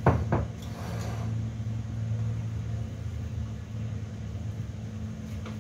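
Kitchen extractor fan humming steadily at a low pitch, with two quick knocks just after the start and a faint click near the end.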